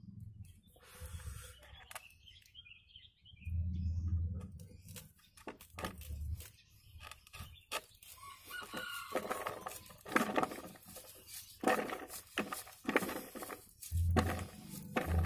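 Kitchen knife slicing kernels off a corn cob, with many short crisp cuts and kernels dropping into a plastic bowl, through the second half. A rooster crows in the background near the start. Dull low thumps come and go, the loudest about four seconds in.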